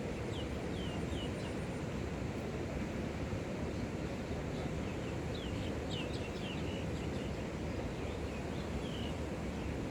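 Birds chirping in short, high, downward-sliding notes that come in scattered clusters, over a steady low outdoor rumble.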